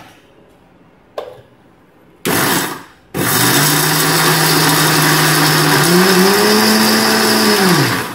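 Electric mixer grinder running with its steel jar of dry coconut, sugar, cashews and cardamom, grinding them coarsely: a click as the lid goes on, a short pulse, then a run of about five seconds. The motor's pitch rises near the end, then winds down as it is switched off.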